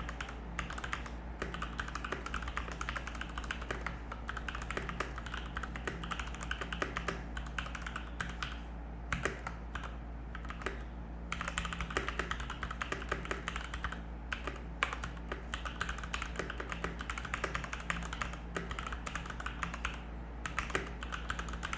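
Fast typing on a Keychron C1 mechanical keyboard: a dense run of key clicks with a couple of short pauses midway.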